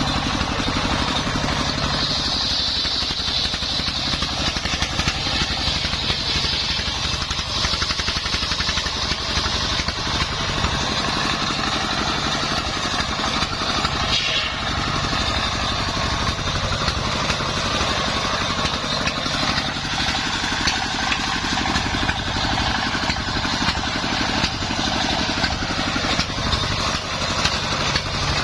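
Engine-driven portable circular sawmill running steadily, its blade cutting through wood with a high whine that rises and falls as the load changes.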